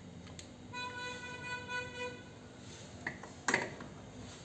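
A vehicle horn sounds once, a steady tone lasting about a second and a half, followed a little later by a sharp click.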